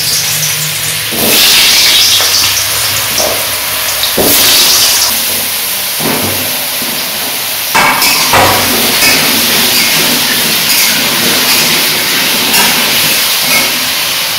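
Potato cubes frying in hot oil in an aluminium kadai, sizzling loudly. The sizzle swells about one and four seconds in as more pieces go into the oil. A sharp knock comes near eight seconds in.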